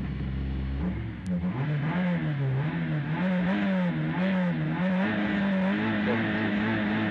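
Citroen C2 R2 Max rally car's 1.6-litre four-cylinder engine heard from inside the cabin, revved while the car stands on the stage start line: after about a second of steady running the revs rise and fall about twice a second as the throttle is worked, then hold steady toward the end, ready for the launch.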